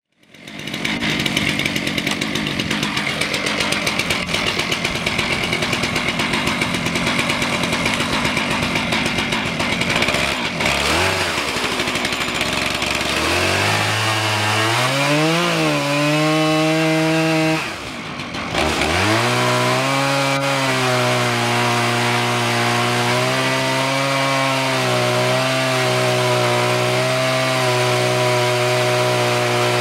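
Chainsaw running under load as it rips lengthwise through a log in an Alaskan chainsaw mill. It runs loud and continuous, with the engine note wavering as the cut loads it, a brief dip about eighteen seconds in, and then a steady pitch again.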